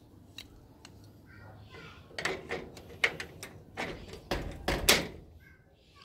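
Door handle knocking and clicking against a security screen door and its mortise lock as the handles are fitted back on. A couple of faint clicks, then a run of sharp knocks and clicks in the second half, the loudest near the end.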